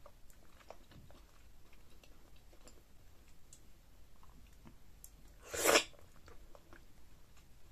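Eating sounds: soft chewing and lip smacks, then one loud, short slurp about five and a half seconds in as slimy, stringy ogbono-okra soup is sucked off the fingers.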